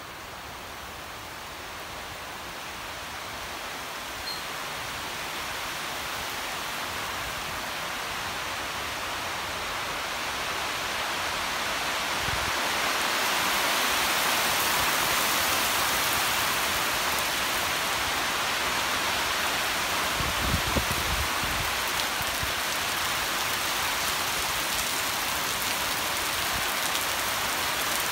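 Heavy tropical rain falling on foliage, bare ground and a water-filled pot, a steady hiss that builds in loudness over the first dozen seconds as the shower becomes a downpour, then holds. A couple of brief low thumps come about twenty seconds in.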